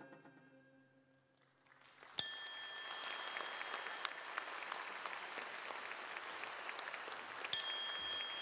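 The last held notes of a Korean traditional music ensemble die away. After a brief hush, audience applause breaks out about two seconds in and keeps going. A bright ringing tone sounds as the applause starts and again near the end.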